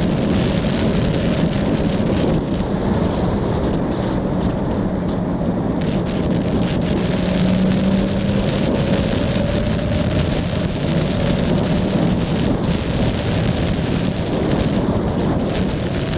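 Yamaha Tracer motorcycle riding at a steady speed: a constant engine hum under heavy wind rush over the camera's microphone, the engine note rising and falling slightly.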